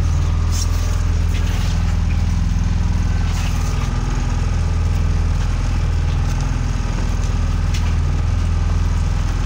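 Fishing boat's on-board engine running steadily with a deep, even drone, with a few light clicks and knocks from handling the fishing line over the wooden gunwale.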